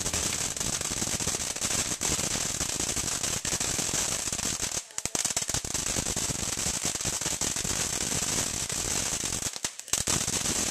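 Ground fireworks going off: a dense, rapid crackle of pops and bangs, with a brief lull about five seconds in.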